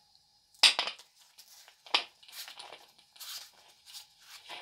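Handling noise from changing an angle grinder's attachment: a sharp click about half a second in and another near two seconds, then fainter rattles and rustles as the sanding backing pad is fitted to the spindle.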